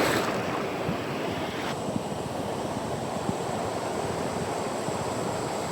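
Ocean surf breaking and washing on the beach, a steady rush of noise with some wind on the microphone; the higher hiss drops off a little under two seconds in.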